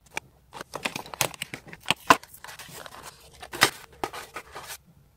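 Clear plastic retail packaging being opened by hand: irregular crinkling, crackling and tearing with sharp snaps, stopping shortly before the end.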